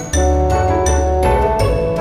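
Background music: an upbeat tune with bright mallet-like notes over a steady bass.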